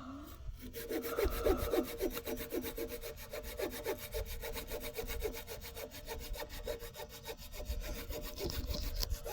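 Hand saw cutting through a log in quick, regular back-and-forth strokes, the blade ringing steadily as it cuts along a marked angle.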